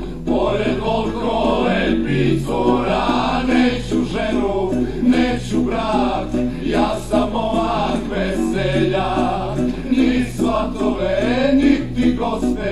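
Recorded band music in an instrumental break between sung verses: a lead melody with wavering pitch plays over a bass line that steps from note to note.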